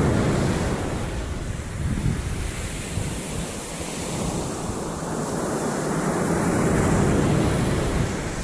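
Rushing noise of wind buffeting the microphone over waves, swelling and easing over several seconds.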